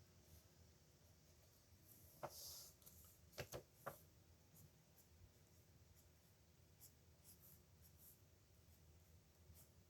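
Metal nib pen scratching faintly across paper in short strokes, with a few sharp little clicks a couple of seconds in.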